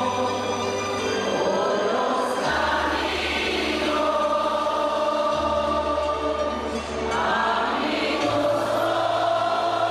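A large congregation singing a hymn together in a big church hall, over a low accompanying note that changes pitch a few times.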